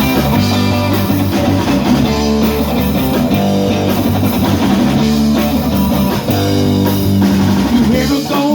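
Live rock-and-blues band playing an instrumental break: electric guitar over bass guitar and drum kit.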